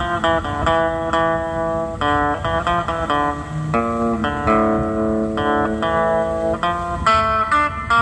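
Stratocaster-style electric guitar played through a small practice amplifier, picking out a melody of single notes, some quick and some held for a second or more.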